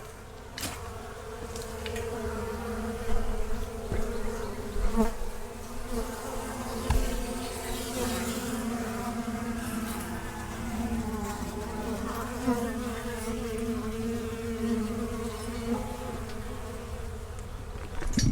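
Many honey bees buzzing together in a steady, dense hum as they work leftover honey on a straw-covered cappings tank.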